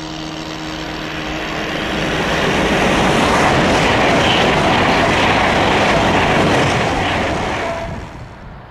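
Class 390 Pendolino electric train passing at speed: a rush of wheels and air that swells over a couple of seconds, holds loud for about four seconds, then drops away sharply near the end.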